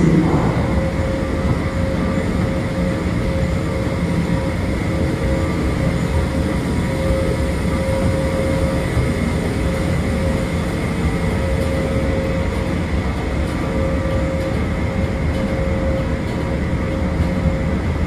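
Westinghouse escalator with a Baldor drive motor running steadily while being ridden down: a continuous low mechanical rumble with a steady hum.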